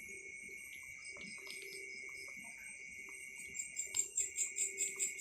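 Night insects, likely crickets, trilling steadily at a high pitch. About three and a half seconds in, a louder chirping starts, pulsing about four times a second.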